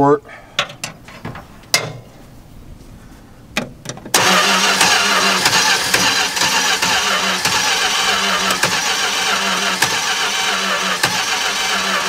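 A 318 polyhead V8 in a 1964 Dodge cranking steadily on the starter, starting suddenly about four seconds in, with its carburettor primed by a squirt of starting fluid. It turns over without starting, with the distributor being turned to advance ignition timing that the mechanic takes for retarded.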